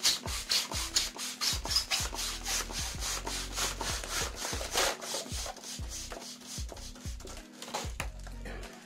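Latex balloons being handled and rubbed by hand: a quick, even series of rubbing strokes, about five or six a second.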